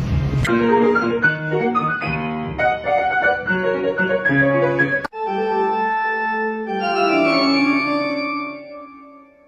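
Music played on a keyboard instrument with an organ-like sound. A run of short separate notes is followed, after a sudden cut about five seconds in, by held chords that fade away near the end.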